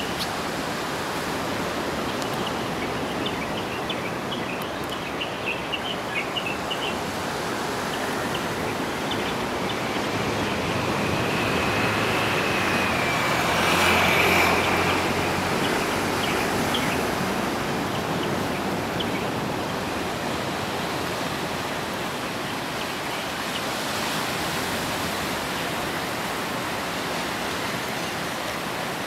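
Steady rushing of surf breaking on a rocky shore. About halfway through it swells louder with a thin whine, then eases back. A few faint, short high chirps come in the first several seconds.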